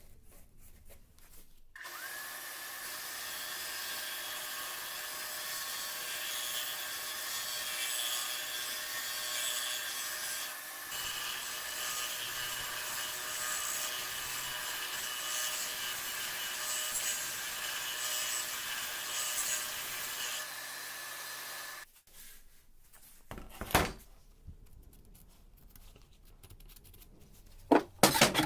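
A power tool starts with a brief rising whine and runs steadily for about twenty seconds, working material with a rasping hiss, then cuts off suddenly. Two sharp knocks follow near the end.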